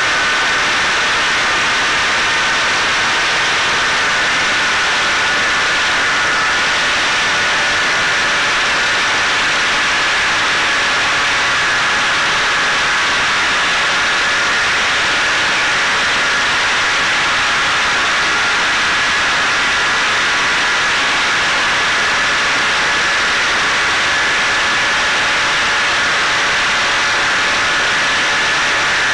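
Onboard sound of a Caipirinha 2 fixed-wing FPV drone in flight: the steady whine of its electric motor and propeller over a constant rush of airflow.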